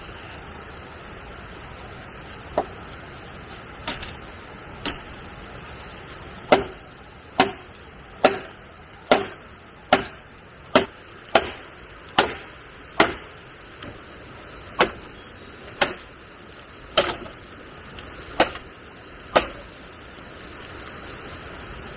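A tool chopping with sharp blows, a few scattered at first, then a steady run of a little more than one a second that stops a couple of seconds before the end, over a steady background hiss.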